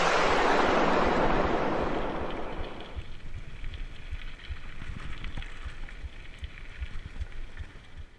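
An electronic music track ending in a noise sweep that falls and fades over about three seconds. It leaves wind noise on the camera microphone and low knocks from a mountain bike rolling over a dirt trail.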